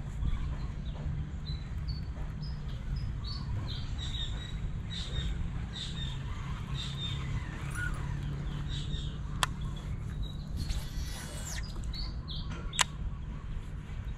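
Birds chirping in short, high, repeated calls over a steady low rumble, with two sharp clicks about nine and thirteen seconds in.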